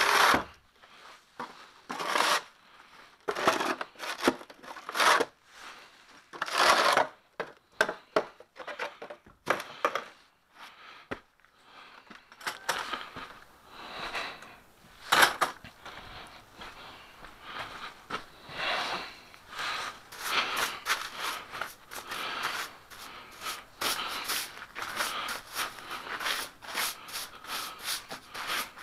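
Broom sweeping light snow off brick steps and pavers: separate scraping strokes at first, then quicker, steadier strokes from about halfway through.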